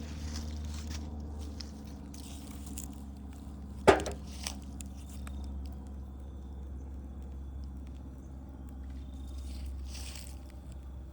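Wood fire burning with soft, scattered crackles over a steady low hum, and one loud sharp pop about four seconds in.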